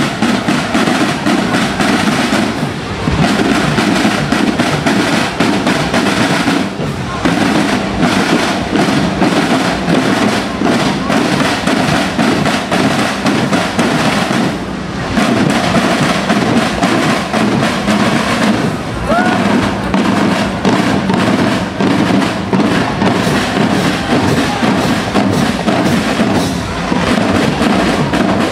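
Marching drum band playing snare and bass drums in a continuous, busy cadence, with a few brief breaks in the beat.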